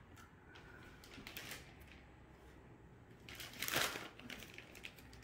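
Kitchen handling sounds from a metal ladle scooping meat sauce out of a pot and spreading it into a foil pan: scattered light clicks and scrapes, with one louder scrape about three and a half seconds in.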